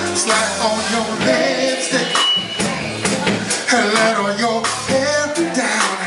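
Live band music with a voice singing over it and a steady beat.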